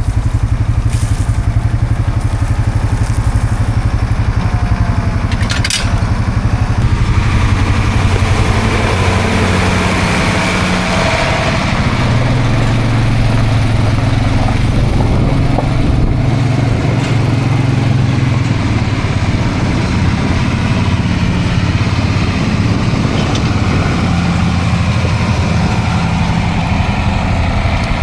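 Heavy diesel engine of corn-chopping farm machinery running steadily, with a fast, even low pulse. A brief click sounds about six seconds in.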